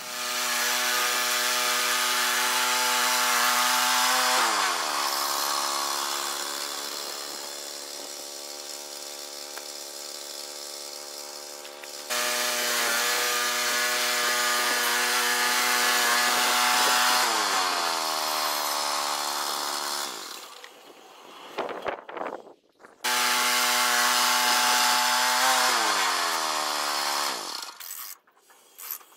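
Gas engine of a Woodland Mills 122 portable bandsaw sawmill running at full speed while the blade saws a pine log. Three times it holds a steady high pitch and then winds down in a falling pitch, with quieter stretches between.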